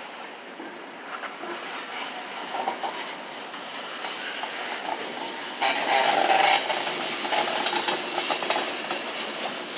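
Freight train cars rolling slowly past, wheels clicking and clanking on the rails. About halfway through, a sudden louder metallic burst lasts about a second, followed by smaller ones.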